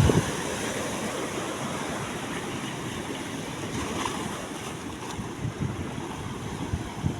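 Steady wash of sea waves with wind, with a few soft low gusts of wind on the microphone near the end.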